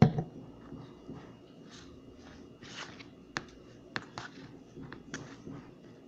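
Metal spoon stirring thick, wet instant mashed potato in a plastic bowl: soft scrapes and scattered clicks of the spoon against the bowl, with one loud knock right at the start.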